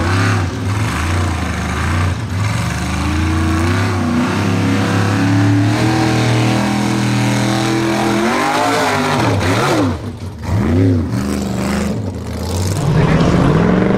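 Formula Offroad hill-climb car's engine revving hard as it climbs a steep dirt slope on paddle tyres. The revs hold high, then swing sharply up and down several times about two-thirds of the way through, briefly dropping around ten seconds in. An engine revs high again near the end.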